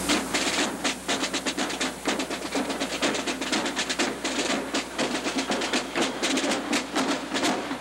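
A fast, uneven run of sharp knocks, several a second, over a steady hiss.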